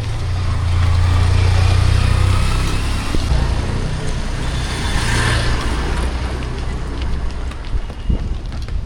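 A motor vehicle's engine running close by, loudest in the first couple of seconds, then a broader rush as traffic passes about five seconds in.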